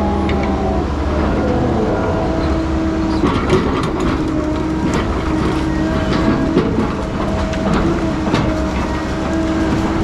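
Heavy diesel logging machine running steadily under load, with scattered metallic clanks and knocks.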